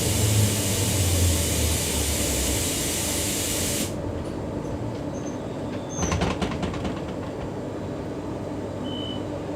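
Interior running noise of a Queensland Rail electric multiple unit (EMU) train: a steady rumble under a loud hiss that cuts off suddenly about four seconds in, followed around six seconds in by a short burst of clattering clicks.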